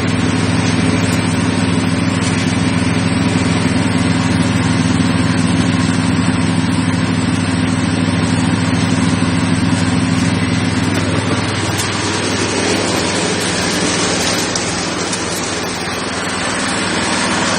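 A 6.5 hp engine driving a multifunction chopper mill that is grinding rice husk into flour, running steadily with a dense hiss from the mill over the engine's hum. About two thirds of the way through, the engine's low hum weakens for a few seconds before picking up again near the end.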